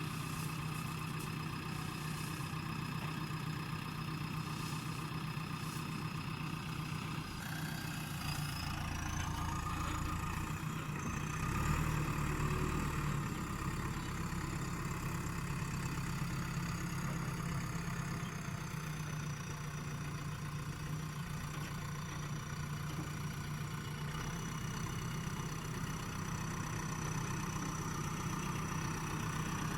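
JCB backhoe loader's diesel engine running steadily. It grows louder and heavier about eleven to thirteen seconds in, and a high whine rises about eight seconds in and then holds.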